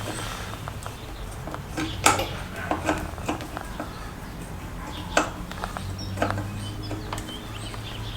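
Hand tools clinking and tapping on metal motorcycle parts: a handful of sharp metallic clicks, the loudest about two seconds in and again about five seconds in, over a low steady hum.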